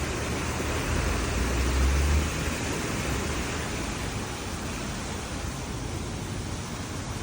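Steady hiss of street traffic heard through a window, with the low rumble of a passing vehicle swelling about a second in and dropping off a little after two seconds.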